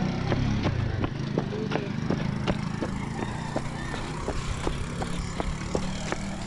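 Jogging footsteps on a concrete road, about three a second, over a small engine running steadily.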